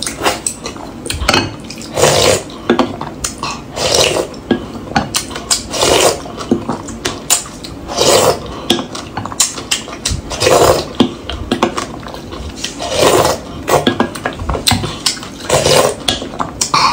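A person slurping soupy broth from a wooden spoon and the rim of a ceramic bowl, one loud slurp about every two seconds, with light clicks of wooden utensils against the bowl in between.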